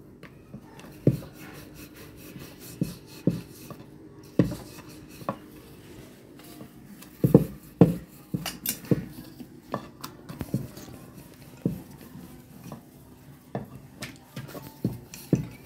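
Kitchen utensils clinking and knocking at irregular intervals: a spoon against a steel pan of minced-meat filling and work on a wooden rolling board.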